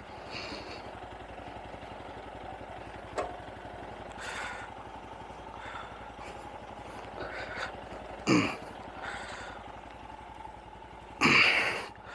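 Single-cylinder motorcycle engine idling steadily while it warms up after a cold start. A few short, louder sounds come over it, the loudest about eight and eleven seconds in.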